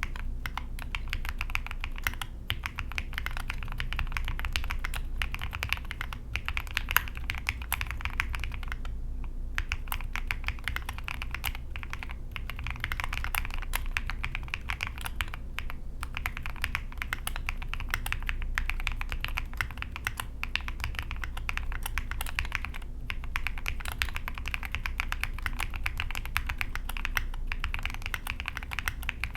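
Steady, fast typing on a 60% mechanical keyboard with lubed Gateron Milky Yellow linear switches, a polycarbonate plate and SA-profile keycaps: a dense run of keystrokes with a few brief pauses.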